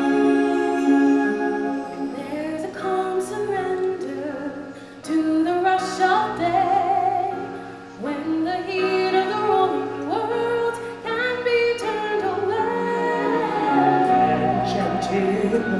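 Show music with singing: voices hold long, sliding notes over instrumental accompaniment.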